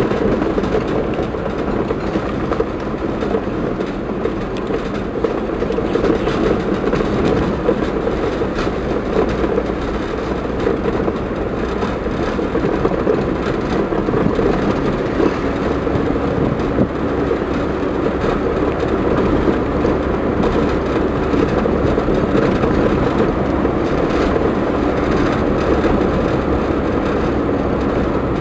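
Road and engine noise heard inside a moving car: a steady rumble of tyres and engine.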